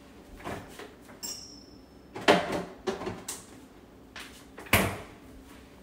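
Kitchen clatter: a handful of short knocks and clinks of cookware and utensils, with two louder knocks a couple of seconds apart, and a brief high thin tone about a second in.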